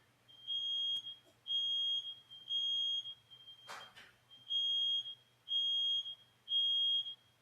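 Smoke alarms sounding in the temporal-three pattern: three high beeps about a second apart, a pause, then three more. A fainter beep of the same pitch fills the pause, and a single sharp knock falls about halfway through.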